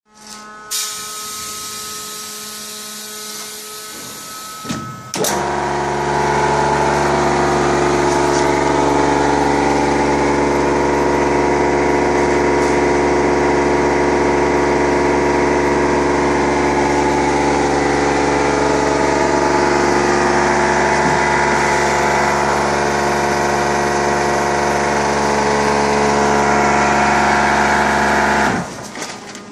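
Electric vacuum pump of a thermoforming machine starting suddenly about five seconds in and running with a loud, steady hum while it pulls vacuum on the forming table, then shutting off shortly before the end. Before it starts there is a quieter steady hiss.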